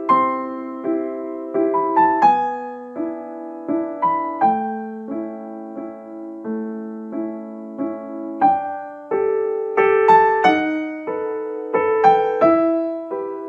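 Background piano music: a slow, gentle melody of struck notes and soft chords, each note fading before the next.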